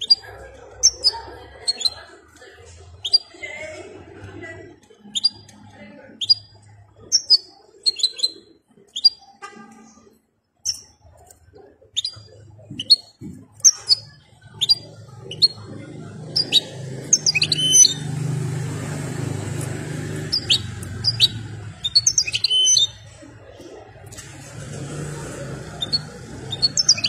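European goldfinch singing: a series of short, sharp, high notes that fall in pitch, about one or two a second, quickening into denser twittering runs past the middle and again near the end. A low rumble runs underneath in the second half.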